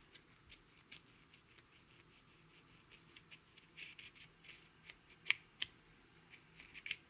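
Plastic spatula scraping and crumbling pressed eyeshadow out of its compact pan: a faint, irregular string of small scratches and clicks, with two sharper clicks about two-thirds of the way through.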